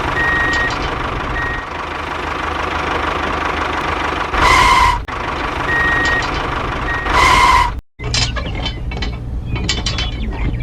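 Mini vehicle running steadily with short reversing-style beeps, and two loud horn-like blasts about 3 seconds apart. About 8 seconds in the engine sound cuts off and gives way to rapid mechanical clicking.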